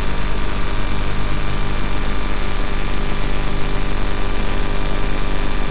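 Game-drive vehicle's engine idling steadily, a constant low drone under a steady hiss.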